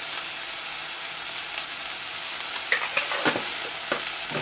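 Sliced onions frying in a cast iron enamel pot, a steady sizzle. From a little over halfway a few sharp clicks and knocks sound over it.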